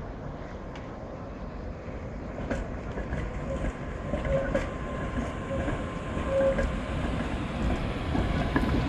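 A coupled pair of Tatra T3 tramcars running past on street track: a low rumble with scattered clicks from the wheels on the rails, a few brief wheel squeals in the middle, growing louder toward the end.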